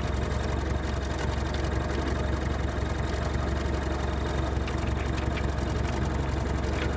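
Off-road vehicle's engine running steadily, heard from inside its cab as a deep, even drone with a faint steady hum above it.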